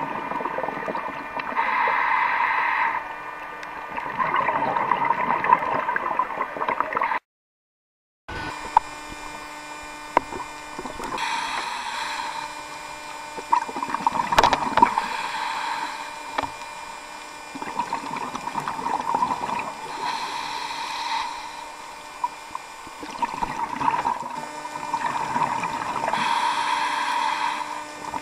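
Scuba diver's breathing heard underwater: noisy swells of regulator breath and bubbles, each lasting one to two seconds and recurring every few seconds. The sound cuts out completely for about a second roughly seven seconds in.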